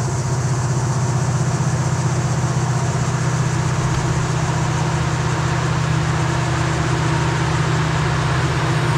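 Diesel locomotive engines of an approaching coal train, a steady low drone with a fine even pulse.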